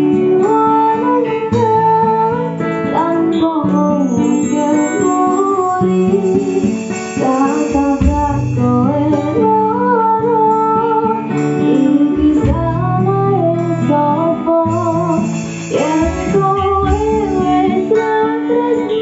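A woman sings a melody into a microphone over live keyboard and guitar accompaniment with a steady bass line, played through amplifiers.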